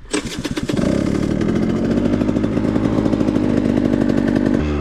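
2021 KTM 125 XC two-stroke single-cylinder engine firing up, stuttering for a moment, then running at a steady fast idle as it warms up, with a change in pitch near the end.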